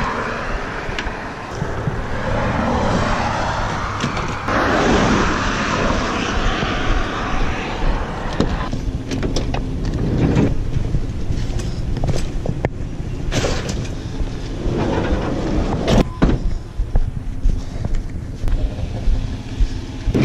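Car driving, with steady engine and road noise and a few sharp knocks.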